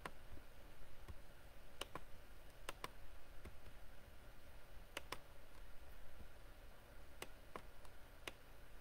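Computer mouse clicking: about a dozen faint, sharp clicks at irregular intervals, several in quick pairs like double-clicks, as text is selected and menus are opened.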